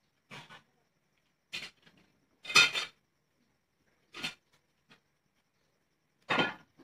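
Kitchen knife peeling a potato: five short scraping cuts through the skin, the loudest about two and a half seconds in.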